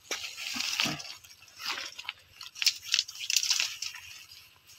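Dry leaf litter and twigs crunching and rustling in irregular bursts as dead sticks are picked up by hand from the forest floor.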